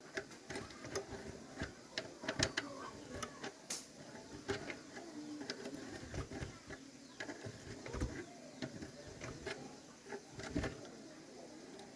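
Irregular clicks and knocks of hand tools and metal parts being handled during hand work on an old motorbike, a few sharper knocks standing out.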